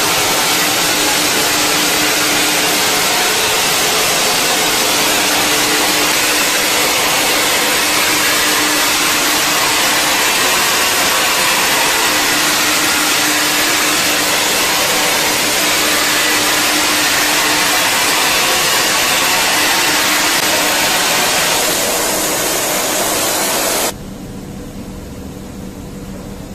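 Automatic zinc spray machine running a spray cycle, metallizing capacitor ends: a loud, steady hiss. It eases slightly about 22 seconds in and cuts off about 24 seconds in, leaving a quieter steady hum.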